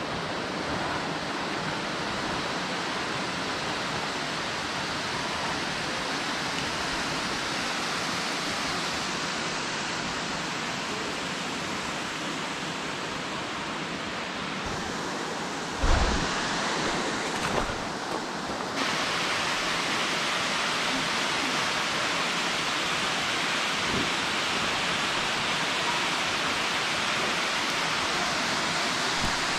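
Steady rush of a waterfall. A brief low thump comes just past halfway, with a smaller one a moment later, and the water is a little louder from then on.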